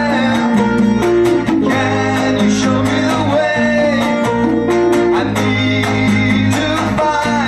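Live folk-rock band playing: strummed acoustic guitar, electric lead guitar, bass and percussion keeping a steady beat.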